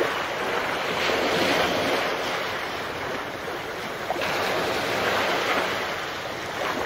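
Small sea waves washing up onto a concrete slipway, swelling twice, with wind on the microphone.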